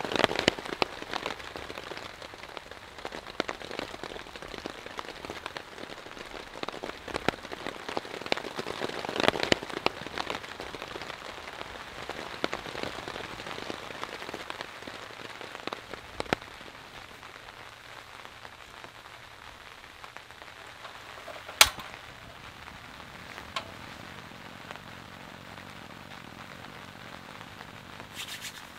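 Rain falling on a dome tent's fabric, with many sharp drop hits in the first half, then a lighter steady hiss. One sharp click stands out about two-thirds of the way in.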